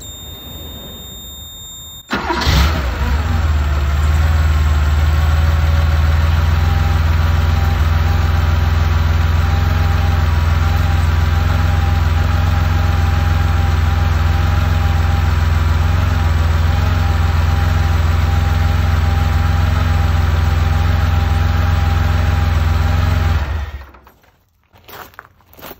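Porsche 911 SC's air-cooled flat-six is started about two seconds in and catches almost at once. It then idles steadily and is switched off near the end.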